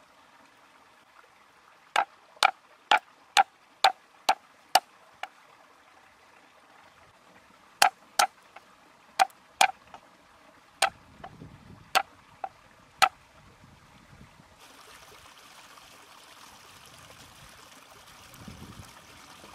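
Cleaver chopping lemongrass and garlic on a wooden chopping block: two runs of sharp knocks, the first at about two strikes a second, the second more uneven. About three-quarters in, a steady hiss takes over as a clay pot of soup heats and steams over the fire.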